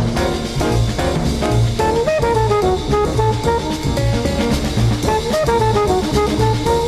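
Recorded music with a steady drum-and-bass beat; a melody line comes in about two seconds in.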